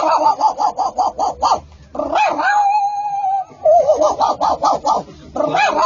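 A man imitating a dog with his voice: quick runs of short high yaps, a long steady whine in the middle, then more runs of yaps.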